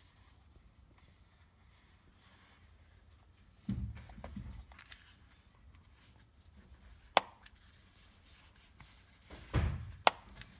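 Cardboard eyelash box with a flip-top lid being handled, opened and shut: a soft thump about four seconds in, a sharp click near the middle, and a thump then a sharp click near the end as the lid closes.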